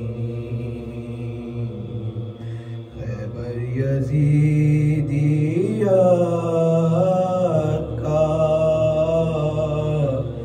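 A man chanting a noha, a Shia lament, into a microphone. He holds long, drawn-out notes that bend slowly in pitch and grow louder about four seconds in, over a steady low drone.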